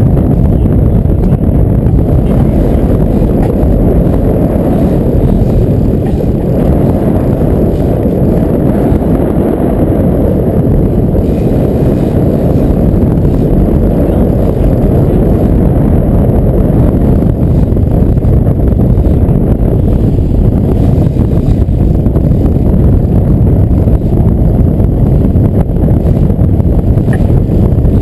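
Loud, steady low rumble of wind buffeting the microphone mixed with the boat's triple outboard motors running.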